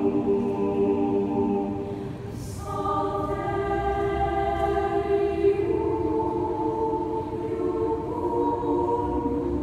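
Mixed youth choir singing long held chords. The sound drops back about two seconds in, a new chord enters shortly after, and the harmony shifts again about halfway through.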